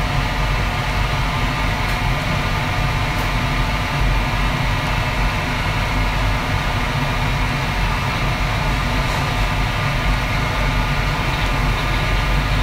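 Steady noise of a restaurant kitchen's gas wok range and extraction hood running: a low rumble with a steady hum of tones over it, unchanging throughout.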